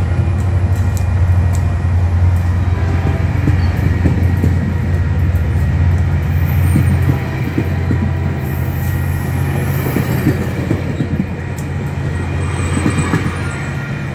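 Caltrain bilevel passenger train rolling past, its wheels running on the rails under a steady low hum. The sound eases about halfway through and falls off further near the end as the last car goes by.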